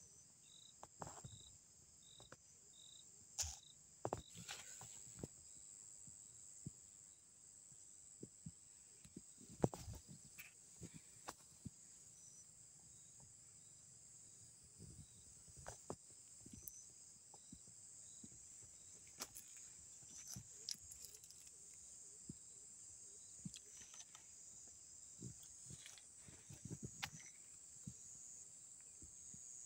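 Faint, steady, high-pitched chirring of crickets or other field insects. For the first few seconds there is also a repeated chirp of about two a second. Scattered clicks and knocks come and go.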